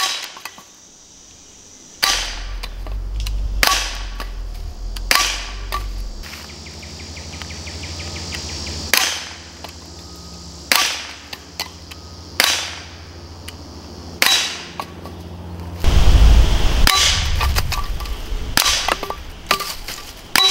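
Gamo P-25 .177 CO2 blowback pellet pistol firing a string of about ten sharp shots, roughly one every one and a half to two seconds, with a longer pause partway through.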